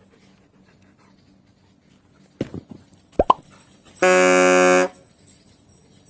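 Edited-in sound effects: a sudden plop and two quick upward swoops, then a steady, flat horn honk lasting just under a second.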